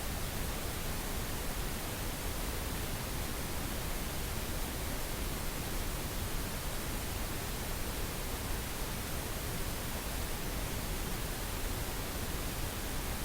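Steady synthetic pink noise, an even hiss spread across all pitches with a deeper rumble underneath, unchanging throughout.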